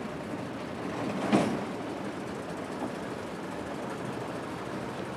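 Old Büssing lorry's diesel engine running as the truck rolls slowly forward, a steady low drone with one short, sharp knock about a second and a half in.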